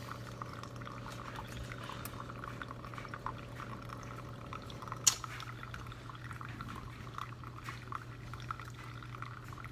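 Keurig K-Elite single-serve coffee maker brewing, with a steady stream of coffee running into a mug over a low, quiet hum. A single sharp click comes about halfway through.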